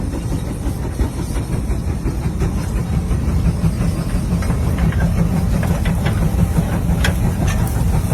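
Tractor engine running steadily, a continuous low mechanical noise with scattered rattling clicks over it in the second half.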